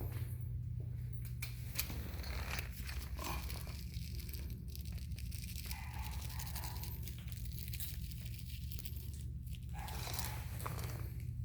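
Irregular scratching, rustling and crinkling as kittens scramble and pounce after a bird toy, with claws catching and the toy rustling, over a steady low hum.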